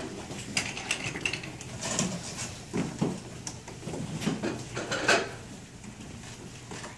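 Knocks and clatter of stage props being handled and set in place, with the loudest knock about five seconds in.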